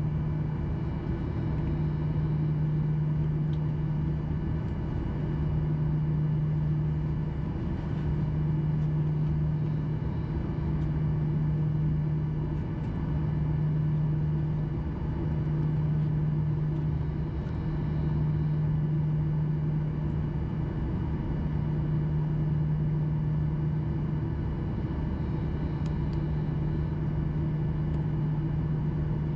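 Steady drone of a Boeing 737-800's CFM56 jet engines heard inside the passenger cabin, a low hum that pulses slowly and regularly every couple of seconds, with fainter steady higher tones.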